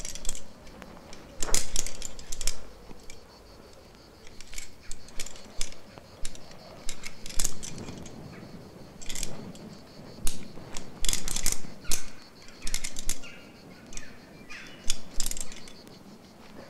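A rock climber moving on a limestone face: irregular short scrapes, taps and clicks from hands, shoes and harness gear on the rock, coming every second or so.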